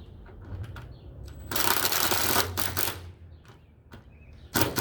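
A power screwdriver drives a self-tapping screw into a roof side-rail mount, a dense rattling run of about a second and a half that stops as the screw seats. A few sharp clicks follow near the end.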